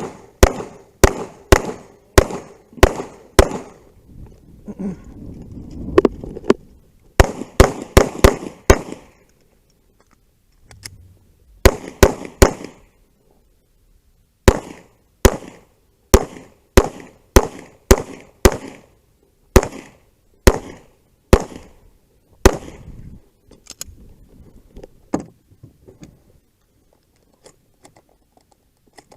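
Strings of gunshots, one every half second or so, fired in quick bursts of three to a dozen with short pauses between them, about thirty shots in all; the last few are fainter.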